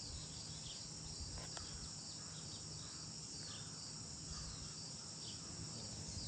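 Steady high-pitched insect chorus, a continuous trill of many insects, with short high chirps scattered through it.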